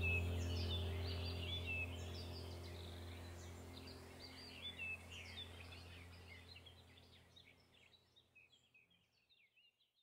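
Background soundtrack of birds chirping over a low, steady drone, fading out gradually until almost nothing is left near the end.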